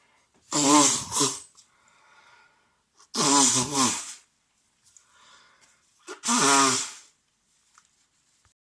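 A man with a head cold sneezing wetly three times in a row, about three seconds apart, with quieter breaths drawn in between the sneezes.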